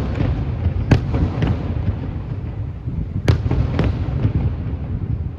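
Fireworks finale: several sharp bangs of aerial shells, the loudest about a second in and about three seconds in, over a continuous low rumble of overlapping bursts.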